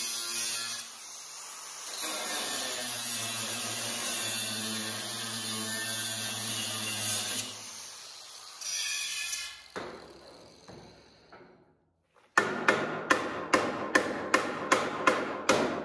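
Angle grinder grinding square steel tubing, dipping briefly as it is eased off the metal. About seven seconds in it stops and winds down. After a short quiet, a hammer taps the steel in a quick, even series of strikes, about two or three a second.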